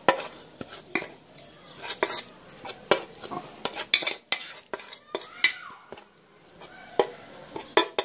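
Metal spoon scraping and clinking against an enamel plate while stirring a dry, crumbly egg-food mix. The scrapes and taps come irregularly, with a quieter spell a little past the middle.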